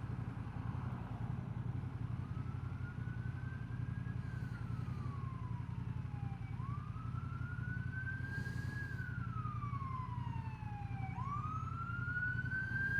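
Emergency vehicle siren on a slow wail, its single tone rising and then falling in long sweeps about three times, starting a couple of seconds in, over a steady low rumble.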